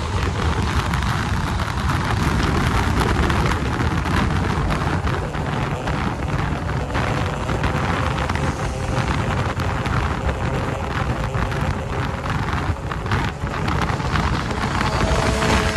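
Heavy, steady wind rush on the microphone over a 600cc sport bike's engine running at highway speed.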